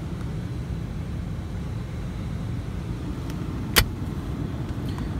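Steady low rumble inside a pickup truck's cab, the engine running at idle, with a single sharp click a little past the middle as the center console is handled.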